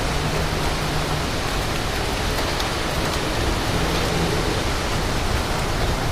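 Strong thunderstorm winds and rain: a steady, even rush of noise with no break, the wind buffeting the microphone.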